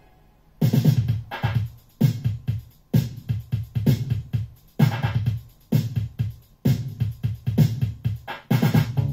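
1985 electro boogie music played from a vinyl record: after a near-silent break of about half a second, a strong low electronic beat comes back in about once a second with synth notes over it.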